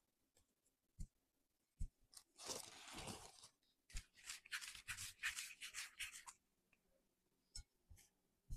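Faint handling sounds of dough balls being coated in sesame seeds in a bowl and set down: a few soft thumps, with stretches of scratchy rustling in the middle.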